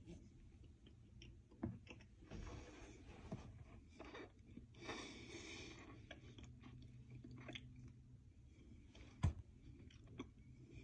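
Cornstarch powder in a drinking glass crunching softly as a spoon works it, in two short soft scrapes, with scattered light clicks and one sharp tap about nine seconds in.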